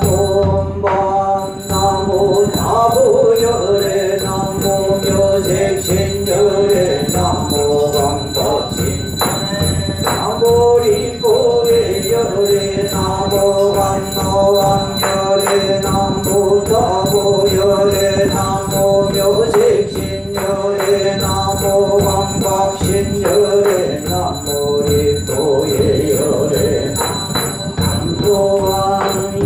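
Korean Buddhist yeombul chanting: a monk and an assembly chanting in unison on a few held, sliding notes, over a regular beat of struck percussion and jingling bells.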